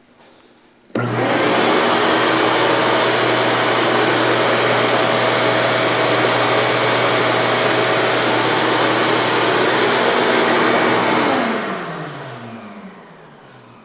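Ridgid shop vac switched on about a second in and running with a steady, loud whine and hum, then switched off about eleven seconds in, its motor spinning down with falling pitch. Running bare, without an enclosure, it peaks at 80.1 dB on a meter four feet away.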